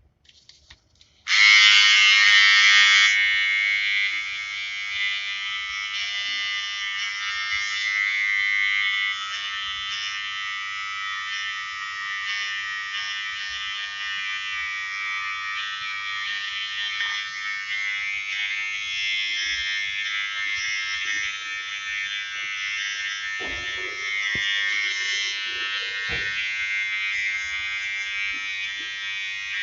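Wahl GroomsMan Pro cordless beard trimmer switched on about a second in and running with a steady high-pitched buzz as it trims a beard.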